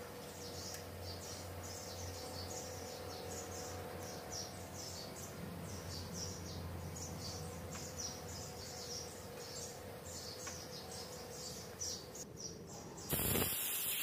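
Compressed-air blow gun cutting in with a loud hiss of air about a second before the end. Before that there is only a steady low hum and a fast, repeated high chirping.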